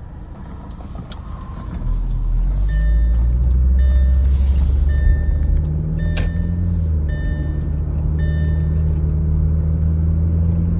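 2008 Audi A4 B7's 2.0-litre turbo four-cylinder engine pulling the car along after a restart, its steady drone swelling about two seconds in and holding. It is running with its power back. A short beep repeats about once a second for several seconds, with one sharp click partway through.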